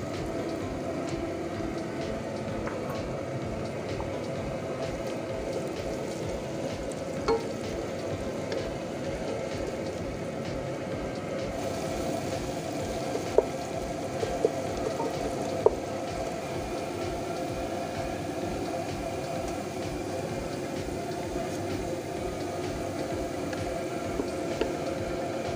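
Sliced onions frying in hot oil in a pot: a steady sizzle, with a wooden spatula stirring through them and a few light knocks against the pot in the middle. The onions are being fried down to golden brown.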